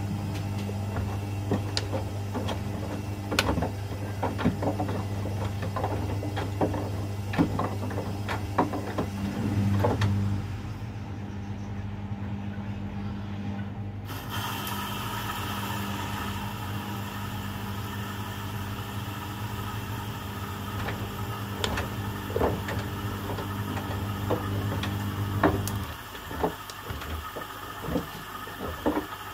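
Washing machines running a rapid wash cycle: a steady motor or pump hum with many short knocks and clicks over it. The hum stops suddenly near the end.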